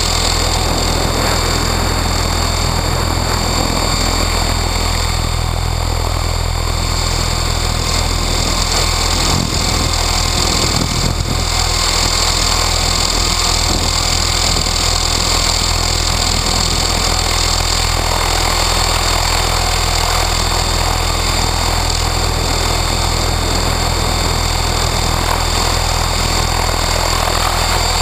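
Align T-Rex 600E Pro electric RC helicopter heard from its own canopy: the main rotor's steady low hum and the electric motor's high whine, running on a 6S battery instead of 12S, with strong wind on the microphone.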